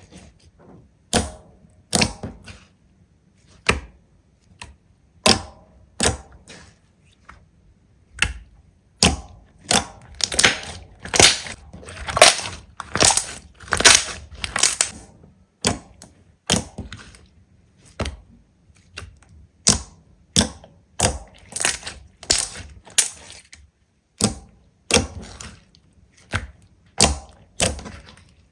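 Slime being pressed and squeezed by hand, giving a string of sharp crackles and pops about once or twice a second, with a denser run of crackling in the middle.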